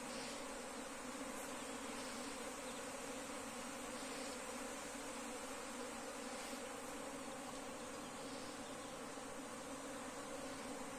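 A dense honeybee swarm in flight overhead, buzzing as a steady, many-layered hum.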